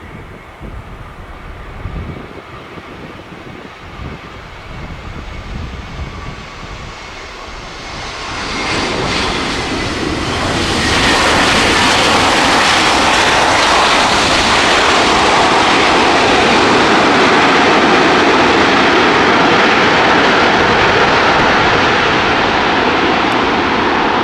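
Jet airliner's engines, an Airbus A320's twin IAE V2500 turbofans: a moderate rumble with a faint whine that swells over about three seconds, from around eight seconds in, into a loud steady rush that holds.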